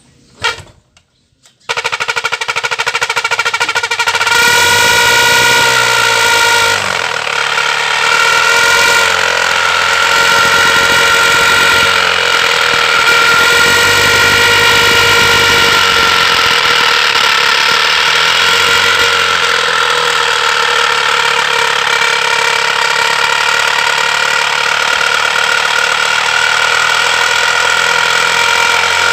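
Motorcycle running with a homemade plastic noise-maker on its silencer, the exhaust giving a loud, steady, horn-like buzzing tone that starts about two seconds in after a single click.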